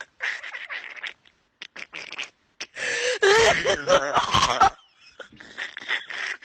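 A person's voice making breathy, choppy non-word noises, with a loud wavering cry or shout in the middle lasting about two seconds.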